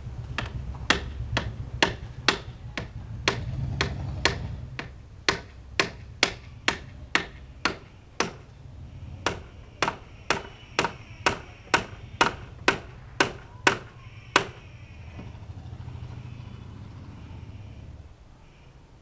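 Hammer driving nails into the wooden frame of a chair: a steady run of sharp strikes, about two a second, that stops after about fourteen seconds.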